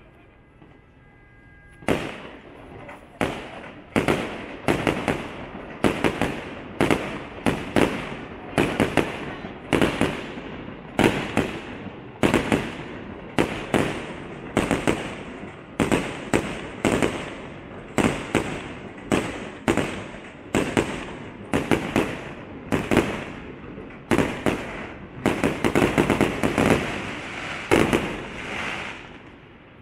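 Aerial fireworks shells bursting in quick succession, about two bangs a second, each trailing off in a rumble and crackle. The bangs start about two seconds in, come thickest near the end, then die away.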